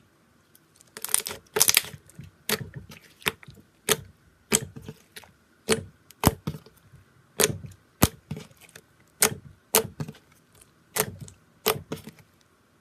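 Knife cutting into a slime stress ball, each cut ending in a sharp click as the blade meets the surface below. The clicks come roughly one to two a second for about eleven seconds.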